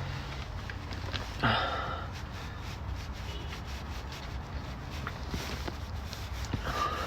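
Faint rubbing and handling noise of differential cover bolts being threaded in by hand, over a steady low hum, with one brief louder sound about a second and a half in.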